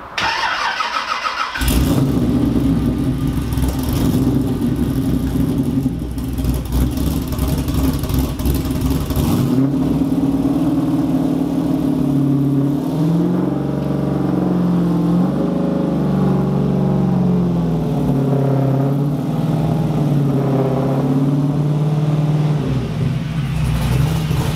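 LS3 V8 in a Nissan 350Z, breathing through a custom dual 3-inch stainless exhaust with a homemade X-pipe and resonators. A brief starter whine, then the engine catches about a second and a half in and runs loud at a raised idle. Its pitch rises and falls a few times in the middle as the car creeps forward, then it settles back to a steady idle.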